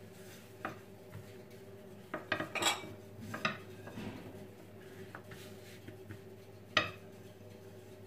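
A long thin wooden rolling pin knocking and clattering against the countertop as dough is rolled out on it: a few scattered knocks, a quick cluster about two seconds in and one sharp knock near the end, over a faint steady hum.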